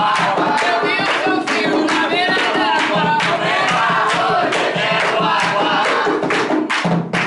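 A group of men and women singing an Umbanda ponto (sacred chant) together to steady, rhythmic hand clapping.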